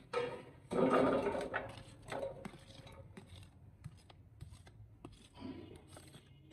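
Raw cut potato fries sliding out of a plastic colander and tumbling into an air fryer basket as fingers push them along. The loudest rush of sliding comes about a second in, followed by scattered lighter taps and scrapes of plastic on plastic.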